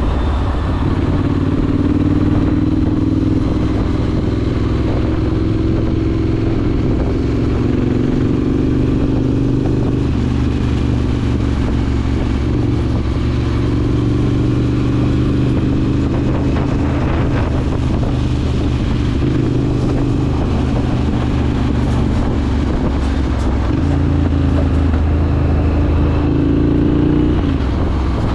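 Triumph Scrambler 900's parallel-twin engine through a ZARD aftermarket exhaust, running on light throttle in slow traffic. The engine note rises and falls gently with small throttle changes, with a brief rise near the end.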